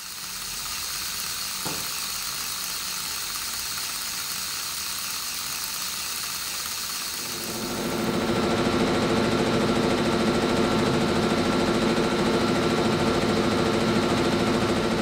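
Steady hiss with a faint high whine, then about seven and a half seconds in a louder, steady mechanical hum with several held tones sets in: the electric motor of a spinning kinetic LED light disc running.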